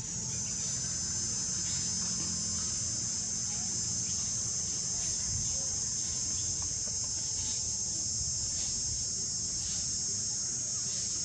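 Steady, high-pitched insect chorus droning without a break, over a low rumble.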